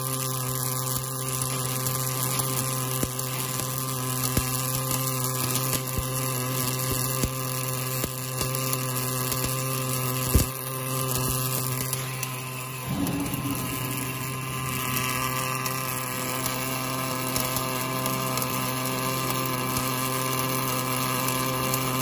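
Automatic wire-fed arc welding of a hydraulic cylinder rod to its rod end: a steady electrical hum under the continuous hiss of the arc, with one sharp crack about ten seconds in.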